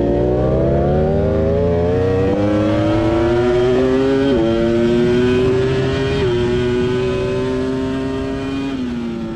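Ducati Panigale V4 R's 1,000 cc V4 engine with open racing exhaust, heard onboard under hard acceleration: its pitch climbs steadily and drops sharply at each upshift, three or four times, easing off near the end.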